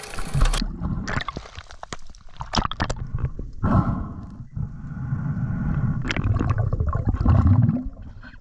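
Water sounds picked up by a GoPro underwater: muffled, uneven low rumbling and gurgling of water moving around the camera, with scattered knocks. A short burst of noise comes at the very start, and the rumble drops away near the end.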